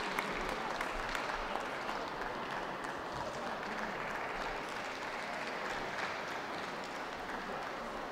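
Audience applauding steadily, a dense spatter of clapping that eases a little a couple of seconds in.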